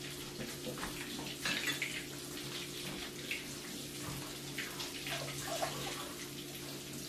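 Water running from a kitchen tap as hands are rinsed under it, with splashes here and there over a steady low hum.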